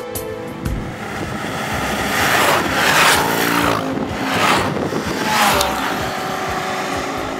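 Road vehicles passing by one after another, each a rush of engine and road noise whose pitch falls as it goes past; the loudest pass is about three seconds in.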